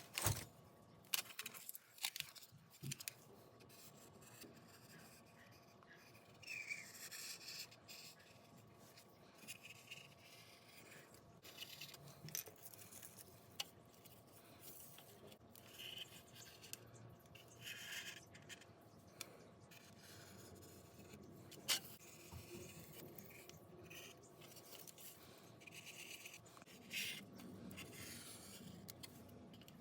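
Quiet, intermittent scratching strokes as paper templates are traced onto a metal license plate, with scattered clicks and taps of the plate and tools being handled; one sharper tap comes about two-thirds of the way through.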